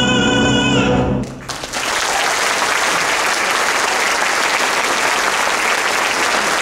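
A man's sung final note, held with vibrato over the accompaniment, cuts off about a second in; after a brief lull an audience breaks into steady applause.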